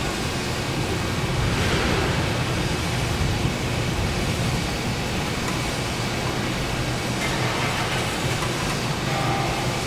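Steady mechanical noise of factory machinery: a continuous low hum under a broad hiss, swelling slightly a second or two in.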